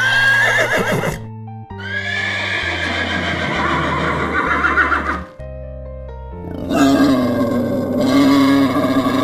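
Horse whinnying twice, a short neigh and then a longer one lasting about three seconds. About six and a half seconds in, a wild boar starts grunting. Background music plays throughout.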